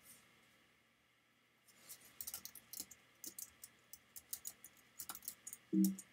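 Typing on a computer keyboard: an irregular run of key clicks entering a short command, starting almost two seconds in and lasting about three and a half seconds. A brief low hum of voice comes just before the end.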